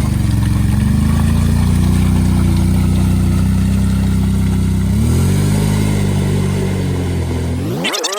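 Honda Rancher 420 ATV's single-cylinder engine running under load through mud, with the revs climbing about five seconds in. It cuts off suddenly near the end.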